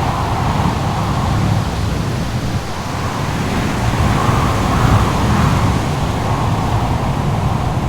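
Steady rushing roar of wind and surf, with a howl of wind that swells and fades.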